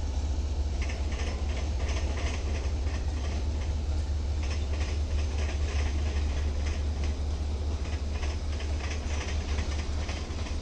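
Diesel locomotive running with a steady low drone. From about a second in there is a rapid, uneven series of higher-pitched clicks and rattles, a few every second.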